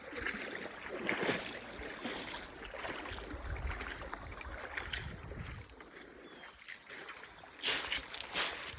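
Water sloshing and splashing around a canoe on a shallow creek, with a run of louder splashes near the end.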